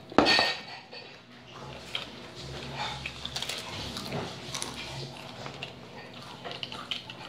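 Someone eating potato crisps: a sharp knock just after the start, then a run of small crunches and clicks, with faint voices behind.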